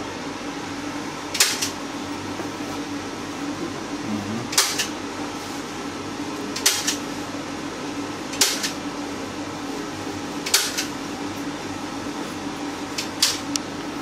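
Short scraping strokes of an oil-painting tool laying paint onto a canvas, about one every two seconds, over a steady low hum.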